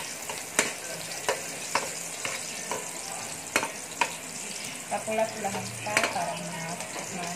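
Chopped garlic sizzling in hot oil in an aluminium wok while a spatula stirs it, clicking and scraping against the metal pan every half second to a second.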